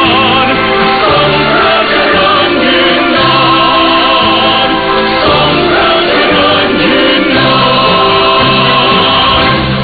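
Choral music with held, sustained chords, heard through a shortwave radio receiver, with the sound cut off above about 5 kHz.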